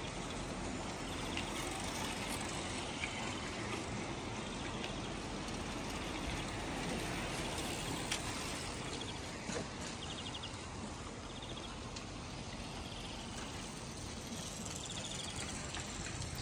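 Bicycles rolling, with short spells of rapid freewheel ticking as riders coast, over a steady hiss of tyre and wind noise and an occasional click.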